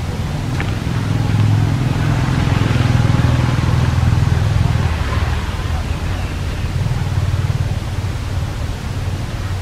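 A low engine rumble with a steady hiss over it, growing louder for a few seconds through the middle and then easing off.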